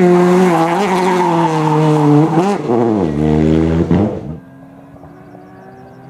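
Peugeot 208 rally car's engine held at high revs as the car slides past close by. About two and a half seconds in, the revs drop sharply and hold lower. After about four seconds the sound cuts away to a faint distant engine.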